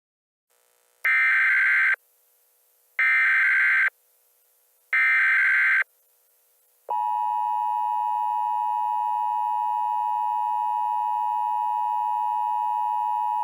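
Mock Emergency Alert System tones: three bursts of the SAME header data signal, each about a second long and a second apart. Then, about seven seconds in, the steady two-tone EAS attention signal comes in and holds.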